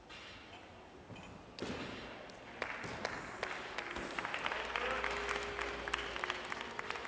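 Applause from a sparse audience, starting about one and a half seconds in and building, with individual claps standing out.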